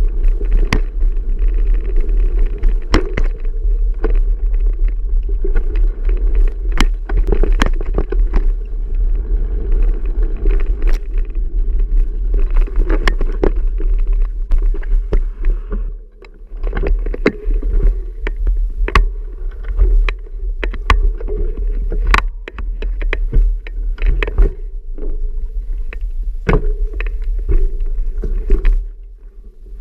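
Wind rumbling on the microphone of a camera riding along on a moving bicycle, with frequent sharp knocks and rattles as the bike runs over bumps. The rumble drops off briefly about halfway through.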